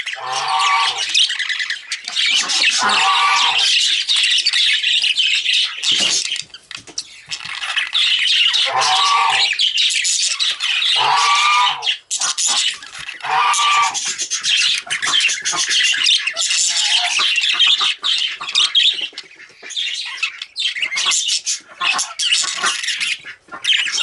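Budgerigars chattering and warbling almost without a break, with several lower-pitched calls standing out here and there.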